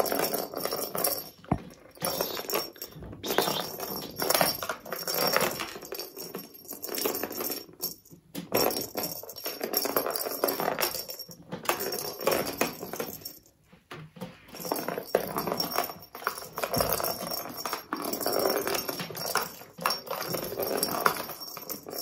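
Kitten batting a hollow plastic cat ball around a plastic laundry basket: irregular knocks and clicks as the ball rolls and hits the plastic sides, with paws scrabbling on the basket floor, and a couple of short lulls.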